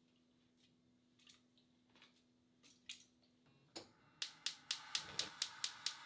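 A few soft knocks of daikon pieces going into a stainless pot. Then, about four seconds in, the gas burner is turned on: its spark igniter clicks sharply about four times a second over the hiss of gas catching into a flame.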